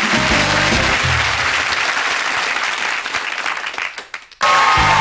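Studio audience applauding over the last notes of the song's accompaniment, the applause fading away about four seconds in. Just before the end, the show's theme music cuts in suddenly and loudly with a steady beat.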